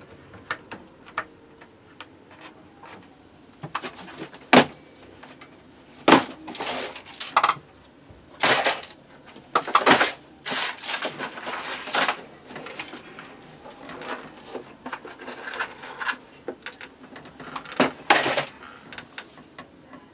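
Small plastic accessory trays and bits of a rotary-tool kit being handled: irregular clicks, knocks and short rattles, with the sharpest knocks about four and a half, six, ten and eighteen seconds in.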